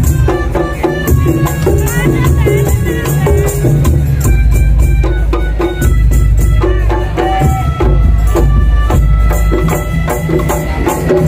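Madurese ul daul ensemble playing loud, dense music: a heavy low drum beat, a melodica carrying the melody, and fast rattling percussion on top.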